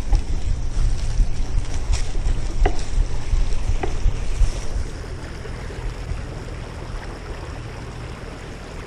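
Wind buffeting the microphone, a gusty low rumble that eases after about five seconds.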